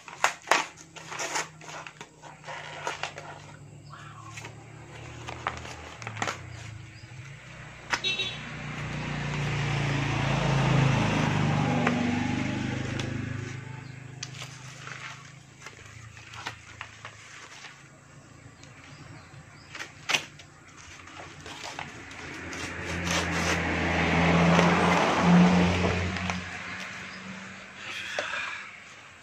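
Brown paper mailer envelope being torn and picked open by hand, with crackling paper rustles and sharp little snaps. Twice a low humming noise swells up and fades away, once about a third of the way in and again near the end.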